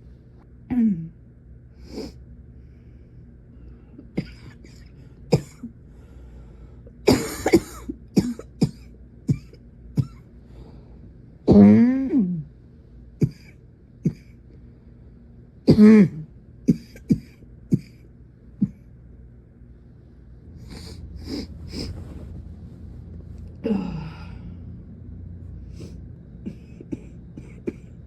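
A woman's coughing fit: four loud coughs, each ending in a falling voiced tail, with many short coughs and throat clearing between them.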